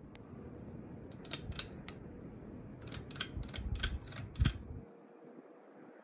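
Hampton Bay Minuet II ceiling fan running with a low whir, overlaid by a string of irregular sharp clicks from about one to four and a half seconds in. The low rumble drops away near the end.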